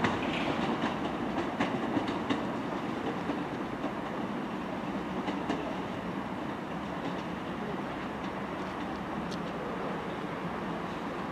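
Class 802 bi-mode train moving at low speed on its underfloor diesel engines, a steady drone and rumble from the unit. Its wheels click over the points and rail joints several times in the first couple of seconds, with a few more clicks later, as the sound eases off while the train draws away.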